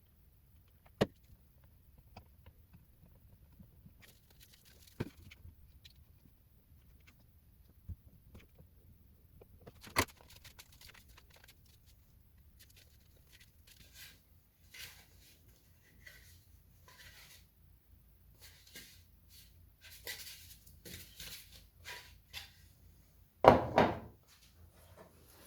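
Scattered clicks and knocks of hard objects being handled and set down, with light rustling in between and a louder clatter near the end.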